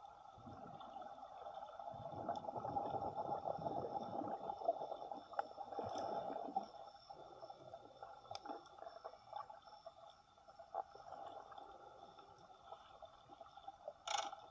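Water sloshing and gurgling, heard muffled underwater, louder for a few seconds after the start, with faint scattered clicks and a short sharp burst near the end.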